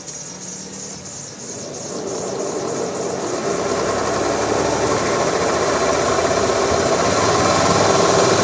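2009 Chevrolet Aveo speeding up toward about 60 km/h: engine and wheel noise rise steadily in level from about two seconds in, building into a drone that the mechanic puts down to a damaged wheel bearing.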